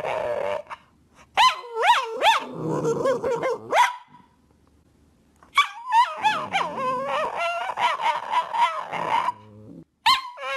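Cavalier King Charles Spaniel vocalizing in long whining calls that waver and swoop up and down in pitch. They come in three bouts, with short pauses about four seconds in and again near the end.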